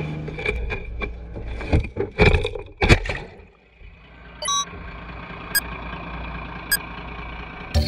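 A crab pot carrying a camera knocks against the boat's side several times and goes into the sea. About halfway through, the sound turns muffled and much quieter as the camera sinks underwater, leaving a steady hum with a few short clicks.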